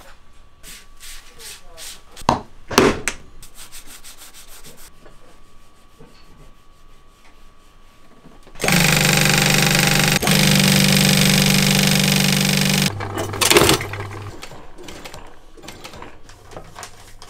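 Leather belt workshop sounds: two sharp knocks a couple of seconds in, then a loud, even scraping for about four seconds as the edges of a stack of leather belt strips are sanded with an abrasive block, then lighter clicking from an industrial sewing machine stitching a belt near the end.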